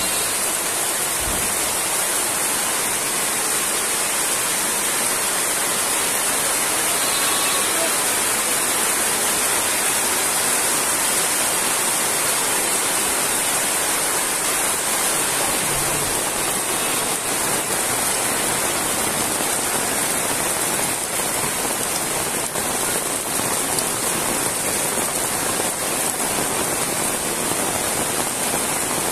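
Heavy rain falling steadily on corrugated metal roofs and wet ground, a dense, even hiss with water running off the eaves.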